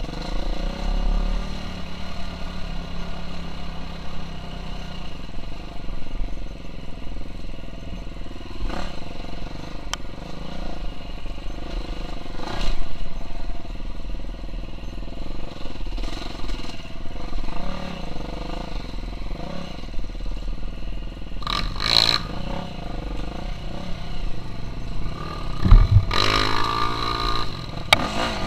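KTM 350 SX-F dirt bike's single-cylinder four-stroke engine running as it is ridden, the revs rising and falling, with a few knocks along the way. The revs climb sharply near the end.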